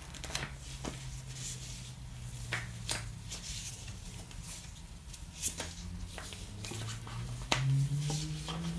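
Paper leaflets and warranty slips rustling and flicking as gloved hands leaf through and shuffle them, with scattered light clicks and taps over a faint low hum.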